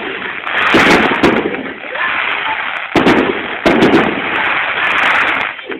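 Fireworks display going off: several loud bangs about a second apart, with crackling between them.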